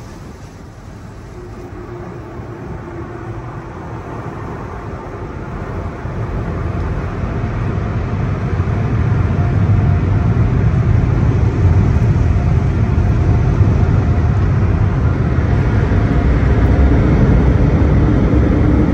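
Car wash blower dryers running, a loud rush of air that builds over the first nine seconds or so and then holds steady, heard from inside the car.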